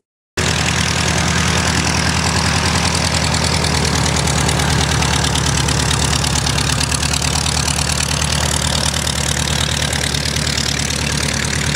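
Renegade Falcon light sport aircraft's Lycoming O-235 four-cylinder air-cooled engine and three-bladed propeller running steadily at low power while the plane taxis, with a fast, even pulsing. It cuts in abruptly just after the start.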